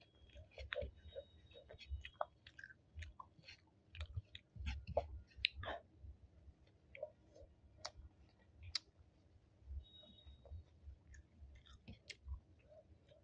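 Close-miked chewing of sticky rice and chicken curry, with many small wet mouth clicks and smacks coming irregularly.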